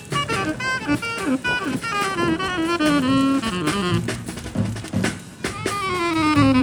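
Background music: a lead instrument playing a moving melody over drums.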